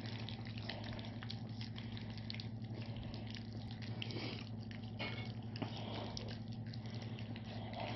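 Several Tosa inu puppies lapping and chewing soft, mushy food from a shared tray: a busy, continuous patter of small wet licking and smacking clicks. A steady low hum runs underneath.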